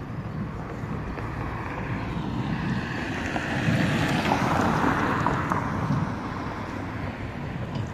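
Traffic noise from a passing vehicle: a rushing sound that swells about four seconds in and fades again a couple of seconds later.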